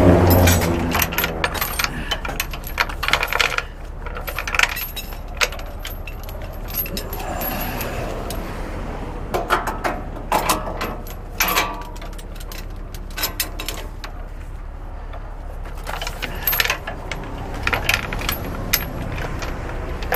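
Irregular metallic clinking and jangling over a steady low rumble, after a low droning tone that stops about a second in.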